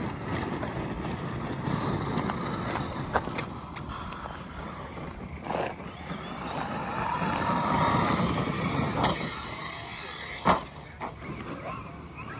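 Large brushless electric RC trucks driven hard across loose gravel: motor whine that swells and fades over the gritty rush of tyres throwing stones. A few sharp knocks break through, the loudest about ten seconds in.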